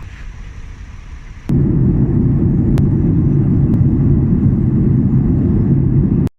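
Airliner jet engines rumbling steadily. About one and a half seconds in, the sound jumps abruptly to a much louder, deeper rumble.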